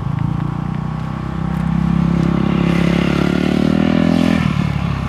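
Honda dirt bike engine pulling away at low speed, revs climbing steadily for about three seconds, then dropping sharply as the throttle is rolled off near the end. The rider is being held in first gear and is trying to get into second.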